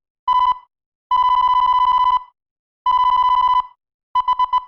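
Electronic buzzer beeps at one steady pitch, in a pattern of short and long tones: a short beep, two long ones of about a second and under a second, then four rapid short beeps near the end.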